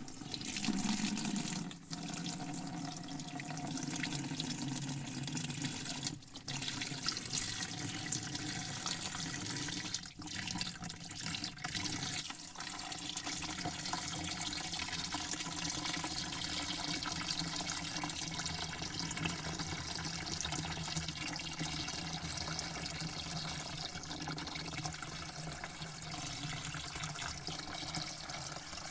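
Water running steadily with a continuous splashing flow, dipping briefly a few times in the first dozen seconds.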